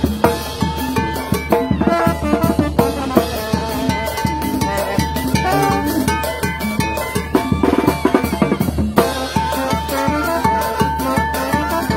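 A live brass band playing: trumpets hold long notes over a busy, steady snare-and-bass-drum beat.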